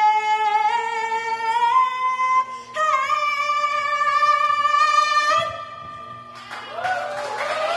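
A woman's unaccompanied singing voice holds two long closing notes. The first steps up in pitch twice, and after a short breath the second ends about five seconds in. About a second later the audience starts applauding and cheering.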